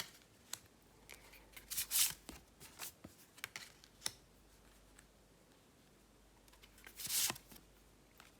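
Tarot cards being handled: faint scattered clicks and rustles over the first four seconds, then a longer rustle about seven seconds in.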